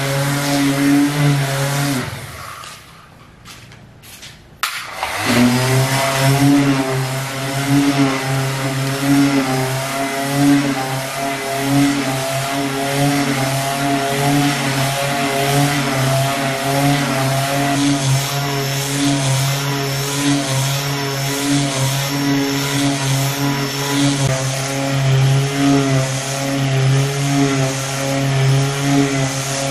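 Electric finishing sander with a dust bag running steadily as its pad is pushed across bare wood, a constant motor hum with a rasping hiss from the sandpaper. About two seconds in the sound drops away for roughly three seconds, then the sander runs on steadily.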